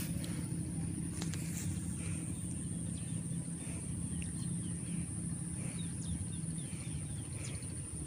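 An insect buzzing steadily at a high pitch and a bird giving a run of short chirps partway through, over a steady low hum.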